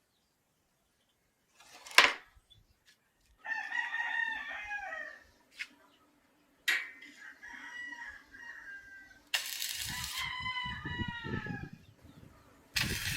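Roosters crowing, three long crows one after another, with a sharp click about two seconds in and some low knocking and noise bursts during the last crow.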